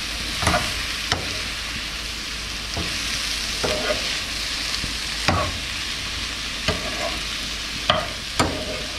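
Shrimp sizzling steadily in a hot frying pan as a metal spoon stir-fries them, with sharp clinks and scrapes of the spoon against the pan at irregular moments, about once a second.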